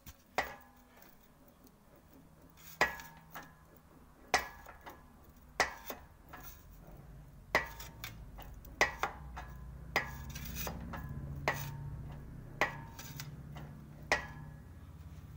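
Sheet-metal quarter-panel repair section being rolled back and forth through an English wheel with its flattest lower die, to put a radius curve into it. About ten sharp metallic clinks, roughly one every second and a half, sound over a low rolling rumble that grows louder in the second half.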